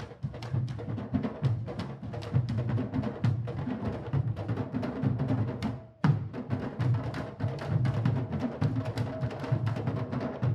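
Candombe drum ensemble (tambores chico, repique and piano) playing a dense rhythm of deep drum tones and sharp stick clicks, some of them on the wooden shells. About six seconds in, the sound drops out for a moment and comes back on a hard strike.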